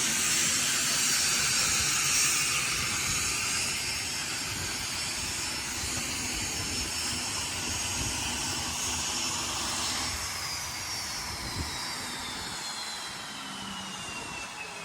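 Aircraft turbine engines running with a loud, hissing whine that slowly fades. About two-thirds of the way in, a distinct whine starts sliding steadily down in pitch, as of an engine spooling down or a plane passing by.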